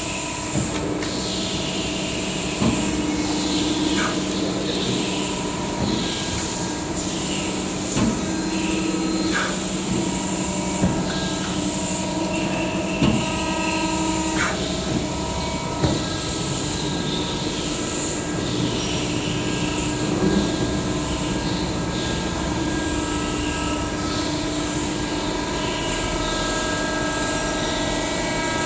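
Hydraulic CNC press brake running: a steady pump hum with hiss, broken by a few sharp knocks and clicks.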